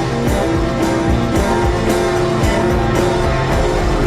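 Rock music with guitar and a steady drum beat, about two beats a second.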